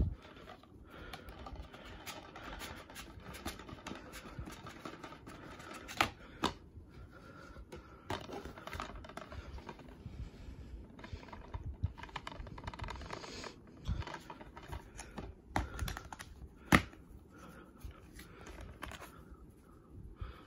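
Hands handling a plastic DVD case: light rustling and clicking, with two sharp clicks, the louder one about two-thirds of the way through, as the case is opened to show the disc.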